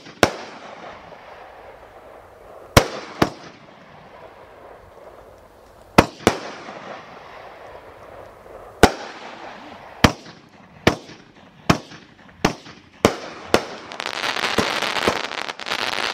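Consumer fireworks cake firing: sharp bangs of shells bursting, each trailed by a fading crackling hiss. They come every two to three seconds at first, then about once a second. Near the end comes a dense crackling barrage.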